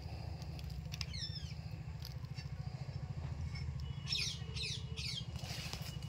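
A low, steady engine-like drone with a fast, even pulse runs throughout, and small birds give short falling chirps about a second in and three quick ones near the end.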